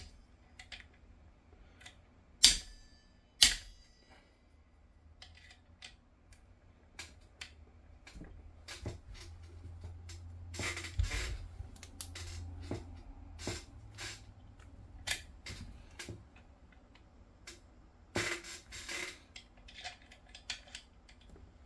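Two sharp metallic clicks about a second apart near the start, then scattered light clicks and taps of small metal parts and hand tools. This is the handling of a porting jig being reset and aligned in an air rifle's valve block.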